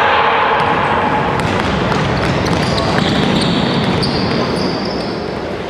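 Basketball bouncing on a wooden gym floor during play, under a steady din of voices.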